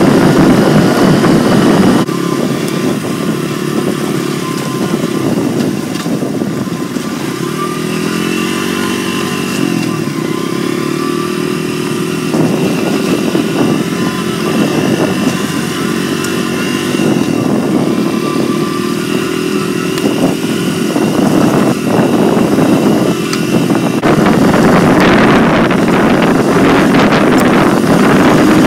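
Dirt bike engine running under way, its pitch rising and falling as it revs and shifts, with wind rushing over the microphone. The sound changes abruptly about two seconds in, and near the end the wind noise is loudest.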